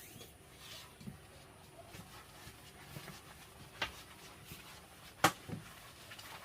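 Quiet background with a few sharp clicks or knocks. The loudest comes about five seconds in.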